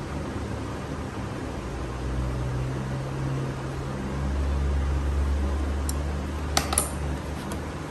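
Steady low mechanical hum, like a fan running. A little before the end come two or three sharp metallic clicks, a screwdriver knocking against the cooler's small swing motor and its mounting screw.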